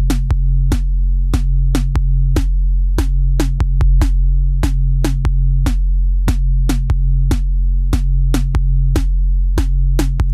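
Electronic background music: a sustained deep bass under a steady drum-machine beat.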